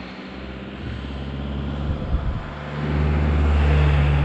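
A van's engine coming up from behind and passing close by, its low hum growing louder and loudest near the end as it draws alongside, with tyre and wind hiss.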